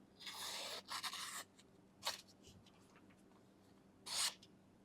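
Hands handling a Victorinox pocket knife, making a few short rubbing, scraping sounds: two in the first second and a half, then brief ones about two seconds and four seconds in.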